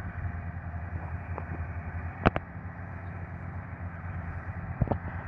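Bore drilling rig machinery running steadily with a low engine hum, broken by two short sharp clicks, about two seconds in and near the end.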